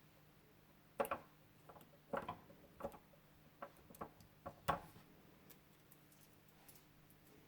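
Faint clicks and taps from handling a 1:18 diecast model car and its packaging, about eight of them from one to five seconds in, over a low steady hum.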